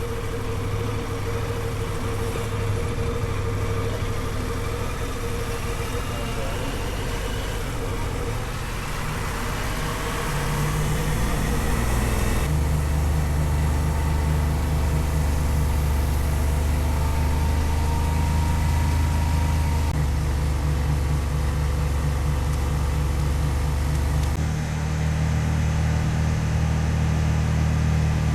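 Honda XL750 Transalp's parallel-twin engine running steadily as the motorcycle is ridden, its low engine note stepping to a new pitch a few times as speed or gear changes.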